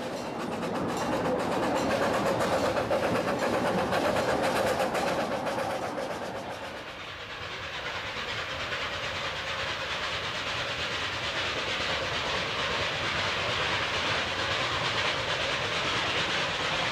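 Miniature park-railway steam locomotive and its carriages running past, with a rapid beat of chuffing and clattering wheels. About seven seconds in, the sound changes to a softer, steadier rumble and hiss.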